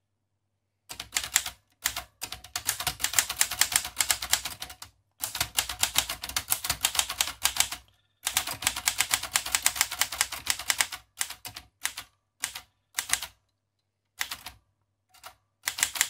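Typing on a 1937 Remington Home Portable manual typewriter: fast runs of keystrokes, the type bars clacking against the paper in spells of a few seconds with short pauses, then thinning to scattered short groups of strikes in the last few seconds.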